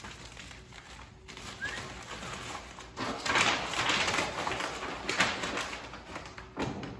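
A large paper backing sheet from vinyl lettering rustling and crinkling as it is peeled off and handled. The rustle is loudest from about three to five and a half seconds in.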